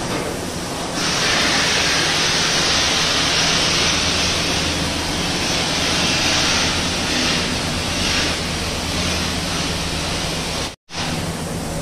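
Steady workshop machine noise: a low hum under a strong hiss that grows louder about a second in, cut by a brief dropout near the end.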